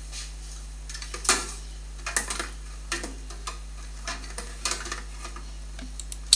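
An Allen key working the small screws that hold the flicker and brush inside a Dimension Elite 3D printer: light metallic clicks and scrapes at irregular moments, over a steady low hum.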